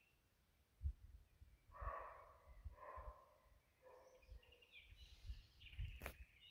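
Roe deer barking: three faint, hoarse barks about a second apart, the alarm call of a roe deer. Faint birdsong follows near the end.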